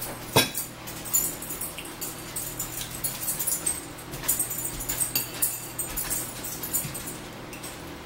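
Close-up eating sounds: irregular wet chewing and mouth clicks, with a sharp clink of a fork about half a second in, over a steady low hum.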